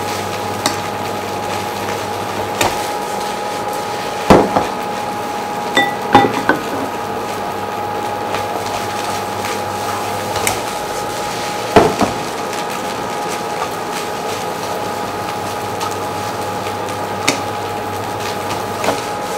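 Wooden chopsticks knocking and scraping against a nonstick wok while fried rice is stir-fried: scattered knocks, the loudest about four seconds in and again near twelve seconds, over a steady background hum.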